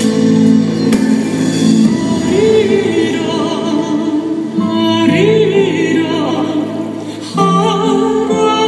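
Dance music playing: a melody in long, wavering held notes over sustained accompaniment, changing abruptly about seven seconds in.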